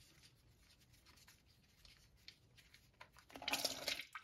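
Faint ticks and scraping as the hybrid transaxle's drain plug is unscrewed by hand. About three and a half seconds in, the old transmission fluid starts gushing out of the drain hole and splashing into the drain pan.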